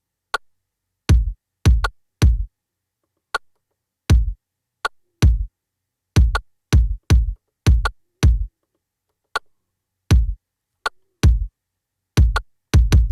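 Drum-machine kick drum samples hit one at a time in an irregular pattern, each a deep thump with a short tail, with a few lighter clicks between them. The hits come closer together near the end.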